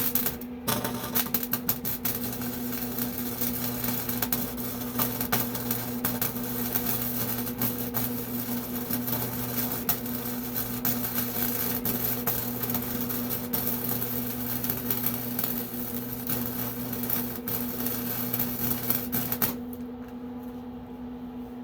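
Electric arc welding: a continuous crackling arc over a steady mains buzz, which cuts off about 19.5 seconds in, leaving only the welder's hum.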